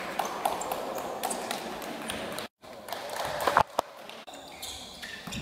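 Basketball game sounds in a gym: scattered taps and knocks of the ball and players' shoes on the court over a low haze of hall noise. The sound drops out completely for a moment about halfway through, and a couple of sharper knocks follow soon after.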